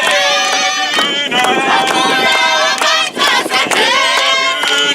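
A congregation of many voices singing a Shona gospel chorus together, holding long wavering notes.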